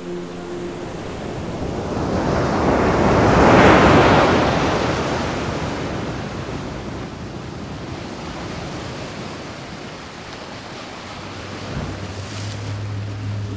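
A rushing whoosh of noise, like surf or wind, swells to a peak a few seconds in and slowly fades into a softer wash. A music drone fades out at the start, and a low hum with held tones comes in near the end.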